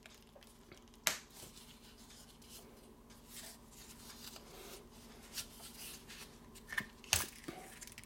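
A Zippo lighter being worked in and out of a snug leather pouch: faint rubbing and rustling of leather on metal, with a sharp click about a second in and a louder one near the end.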